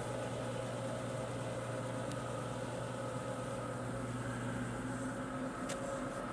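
Electrolux washing machine running its spin cycle: a steady hum with a few faint ticks. This is the noise the owner calls a strange creaking in the spin, which he does not know is normal.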